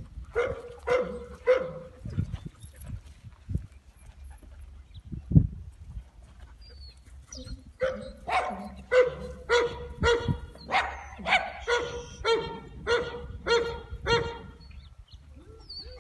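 Dog barking: three barks at the start, then after a pause a steady run of about a dozen barks, roughly two a second. A single dull thump in the pause is the loudest sound.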